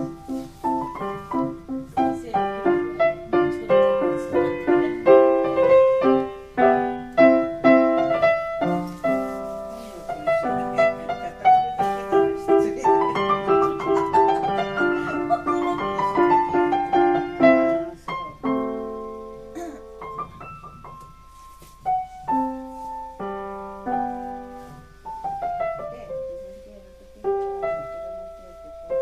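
1872 Ritmüller upright piano being played: a flowing passage of quick notes with rising and falling runs, easing after about eighteen seconds into slower, sparser chords.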